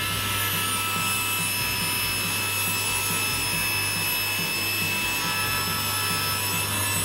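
Table saw running and ripping a pine board fed with a push stick: a steady motor hum and high blade whine under the sawing noise of the blade in the wood.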